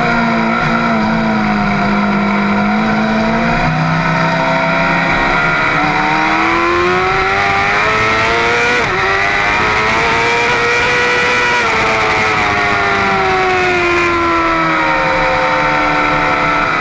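Middleweight superbike engine at high revs, heard from a camera on the bike. The pitch dips slightly, climbs smoothly for about nine seconds, then eases down near the end, over a steady rush of wind.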